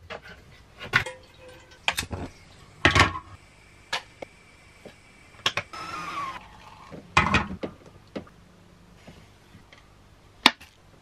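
A string of knocks, clicks and clatters from kitchen things being handled: a cupboard door, a large plastic water bottle, a kettle on the gas hob and a coffee maker and mug. There is a brief rushing sound about six seconds in and a sharp click near the end.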